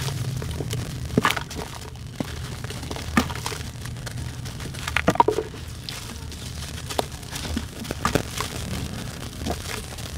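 A wet, gritty sand-and-charcoal chunk being crushed and crumbled by hand: scattered crunches and wet splats as clumps drop into a basin of watery slurry, the loudest about one, three and five seconds in.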